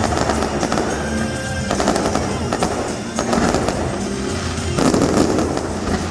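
Fireworks bursting and crackling in rapid succession, with music playing underneath.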